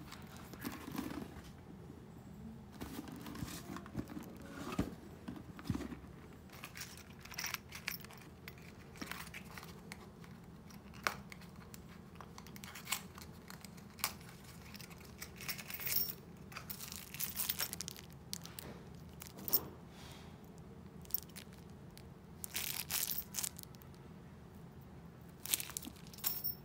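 Close handling of a Louis Vuitton canvas-and-leather handbag: its brass zipper being worked, rustling and crinkling, and scattered light clicks and taps of the metal hardware. Several short rasping bursts come in the second half.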